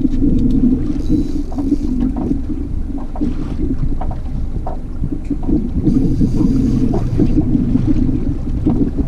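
Wind buffeting the camera microphone on an open fishing boat: a loud, steady, fluttering rumble, with water noise around the boat.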